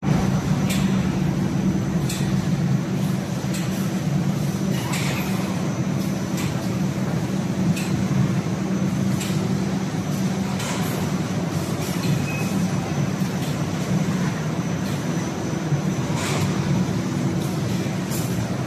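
Automatic spiral paper-tube production line running: a steady machinery hum with short sharp clacks coming every second or two.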